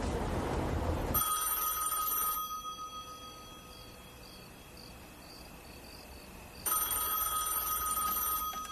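Landline telephone ringing twice, each ring about a second and a half long and about five seconds apart, with the first ring dying away slowly. Before the first ring, a low street hum cuts off about a second in.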